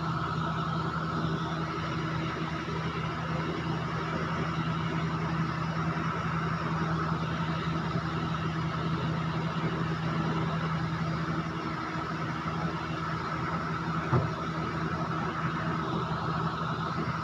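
Steady mechanical hum with a low drone and a fainter higher whine, unchanging throughout, and one brief knock about fourteen seconds in.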